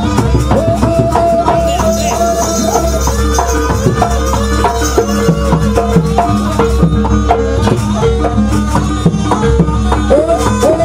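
Live Javanese jaranan accompaniment: a gliding melodic lead line over drums and percussion with a steady beat.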